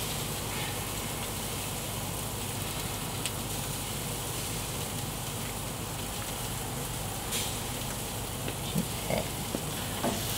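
Steady hiss from a closed Landmann gas grill, its burners running and food sizzling under the lid. A few faint knocks come near the end as a hand takes hold of the lid handle.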